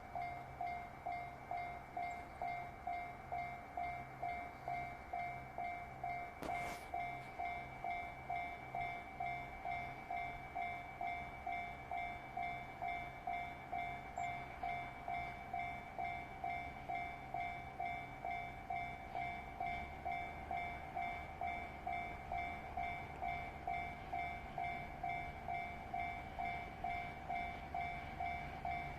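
Japanese level-crossing warning bell ringing steadily at about two dings a second. A low rumble builds from about two-thirds of the way in as a train approaches.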